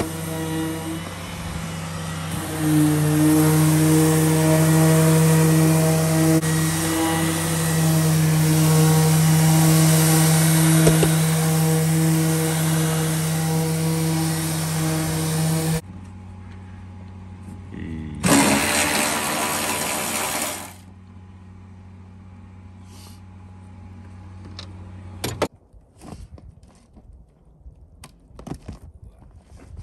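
Electric random orbital sander running against the van's painted steel hood, a steady whir over a hiss, with its dust extractor drawing through the hose. The sander cuts off suddenly about halfway through. The extractor's lower hum runs on, with a brief loud burst of noise, then stops near the three-quarter mark. A few clicks and knocks follow as the tools are handled.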